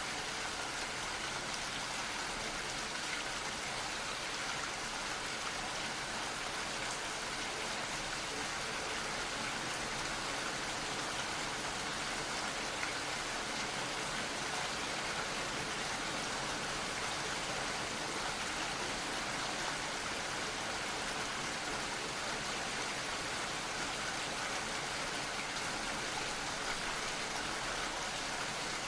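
Gentle, steady rain falling: an even hiss of many small drops, with no change in strength.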